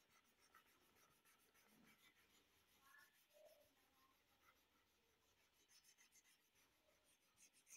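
Very faint rubbing of a piece of paper over oil pastel on drawing paper, blending the colour in repeated strokes.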